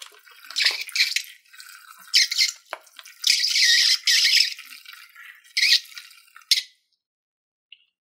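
Foamy filling squeezed out through the cut tip of a rubber balloon, hissing and sputtering in several irregular bursts, the longest about a second long, stopping about three-quarters of the way through.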